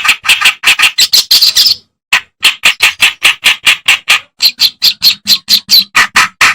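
Kerak basi (reed warbler) singing a fast run of harsh, scratchy chattering notes, about five a second, with a short break about two seconds in.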